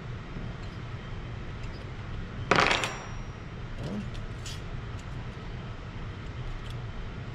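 A metal wrench set down on the workbench with a short, ringing metallic clatter about two and a half seconds in, followed by a few small tool clicks, over a steady low hum.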